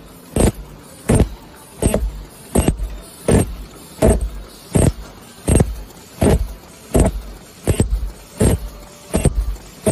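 XL-ZBG16 paper cup forming machine running, its mechanism clanking in a steady rhythm of about three strokes every two seconds, each stroke a short clatter over a low mechanical hum.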